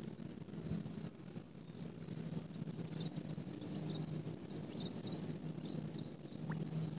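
Field insects trilling: a steady high-pitched buzz, with short chirps about three a second that stop shortly before the end, over a faint low rumble.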